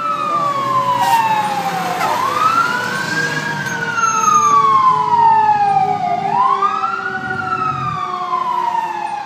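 Fire engine siren on a slow wail, its pitch falling, rising again about two seconds in, falling, and rising once more about six seconds in before falling away at the end.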